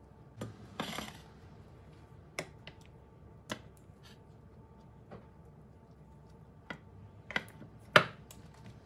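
A metal spoon clinking and scraping against a glass dish and a bowl while chocolate pastry cream is spread and scooped: scattered light taps, a short scrape about a second in, and the sharpest clink near the end.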